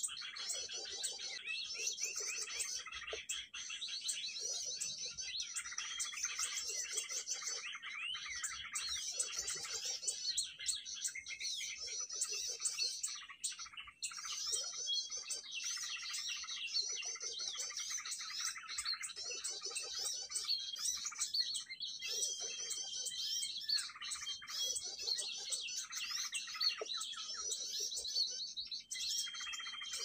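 Dense, continuous chirping and twittering of small birds, many short calls overlapping, with a lower call pulsing about every second and a half underneath.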